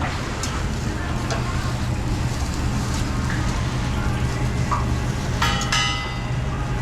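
Busy restaurant kitchen background: a steady low hum of ventilation with a sizzling haze from the cooking line and scattered light clatter. About five and a half seconds in, a short metallic clang rings out twice in quick succession.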